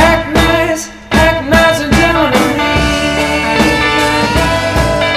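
Rock music with guitar and drums, full and continuous, with bending guitar notes.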